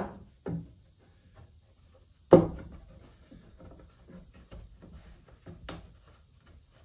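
A hickory board knocking and scraping against a wooden whiskey barrel as it is pressed into place for a test fit. A sharp knock about two seconds in is the loudest, with a few lighter knocks and rubs before and after.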